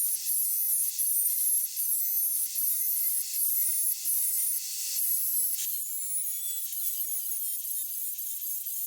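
Wood being cut by hand in steady back-and-forth strokes, a little over two a second, stopping about five seconds in with a sharp click, followed by lighter, uneven scraping.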